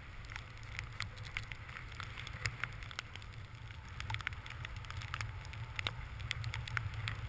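Snowboard sliding through powder snow: a steady low rumble and hiss with many scattered sharp clicks.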